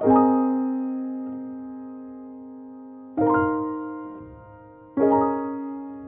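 Background music: slow solo piano, three chords struck at the start, about three seconds in and about five seconds in, each left to ring and fade away.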